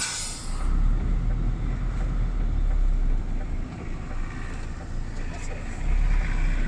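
Heavy truck's diesel engine running at low speed, a steady deep rumble heard from inside the cab, swelling slightly twice. A short hiss at the very start.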